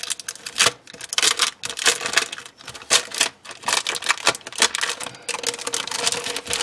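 Clear plastic cellophane sleeve crinkling and crackling in quick, irregular bursts as planner sticker sheets are handled and slid out of it.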